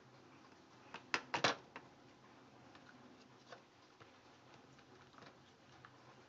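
Light clicks and taps from handling slime-making supplies, with a short cluster of louder knocks about a second in.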